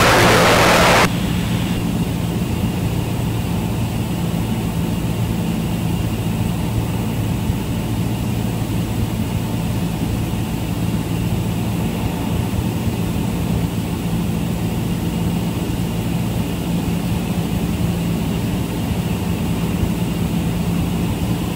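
Cessna 172 Skyhawk's four-cylinder Lycoming IO-360 piston engine and propeller in flight, a steady drone heard from the cockpit. A loud hiss cuts off abruptly about a second in.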